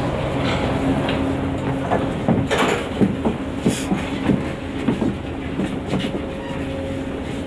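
Metro train standing at a platform with its doors open, its equipment giving a steady low hum. Passengers' footsteps and scattered knocks come as people board, busiest in the middle.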